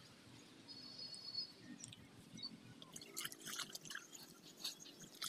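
Faint clicking and crackling that grows denser in the second half, with a few brief faint high chirps about a second in.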